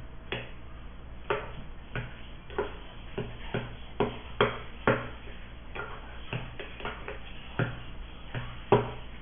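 A utensil clinking against a bowl as food is stirred and mixed: irregular light taps, about fifteen over several seconds.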